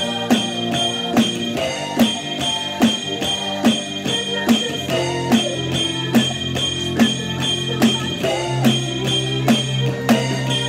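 Music with guitar and bass, with electronic drum-kit sounds from a Drumskool roll-up drum pad played along in time. Strong drum hits come at an even pace, a little faster than one a second, with lighter hits between them.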